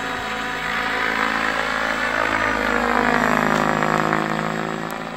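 Electric RC helicopter (HD Helicopters HD 750, run on a 12S lipo) flying: a steady rotor and motor whine whose pitch dips and rises again about halfway through as it manoeuvres, then fades away near the end.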